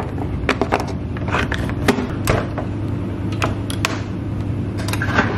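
Plastic clicks and knocks of a GE dishwasher's detergent dispenser being loaded and its cover snapped shut, then the door closed, over a steady low hum.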